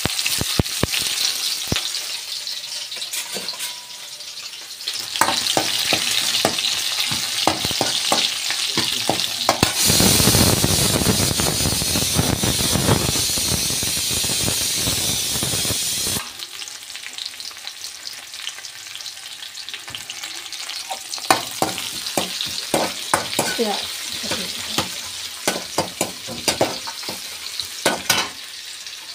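Chopped onions frying and sizzling in hot oil in an aluminium kadhai, with a steel ladle scraping and clicking against the pan as they are stirred. About ten seconds in, a louder, fuller hiss sets in and runs for about six seconds before dropping back.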